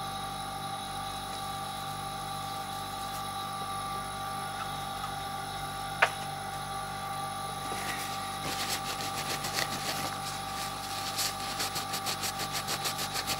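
Steady mechanical hum, with a single sharp click about six seconds in. Later comes rapid, even tapping at about five taps a second, in two spells toward the end.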